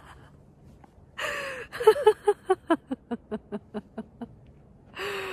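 A woman laughing: a burst about a second in, then a run of short "ha" pulses, about six a second, fading away.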